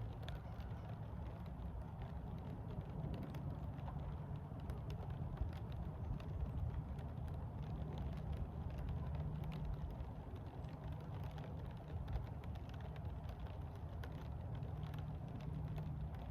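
Light rain pattering: many small scattered drop ticks over a low, steady outdoor rumble.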